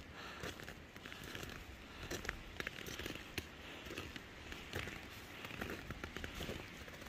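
Hiker's boots crunching in snow, step after step at a steady walking pace.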